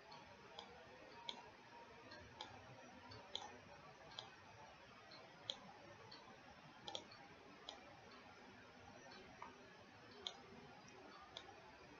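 Faint computer mouse clicks, about a dozen sharp single clicks at irregular intervals, over a low background hiss.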